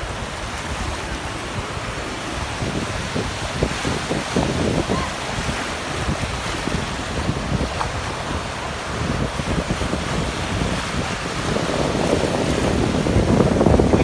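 Sea surf washing and breaking in shallow water, with strong wind buffeting the microphone in irregular low rumbles. It grows louder over the last couple of seconds.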